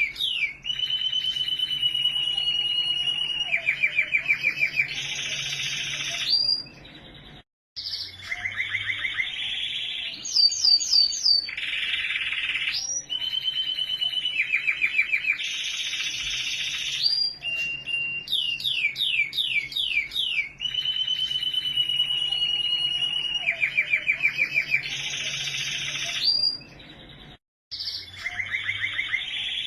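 Domestic canary singing a long song of rapid trills, held whistled notes and quick rising sweeps, broken twice by brief pauses.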